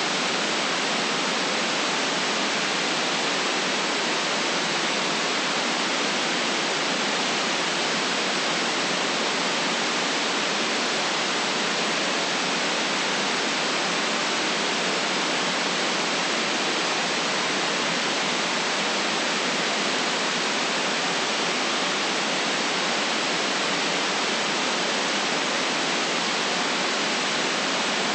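Steady white noise: an even, unchanging hiss with no deep rumble and no breaks.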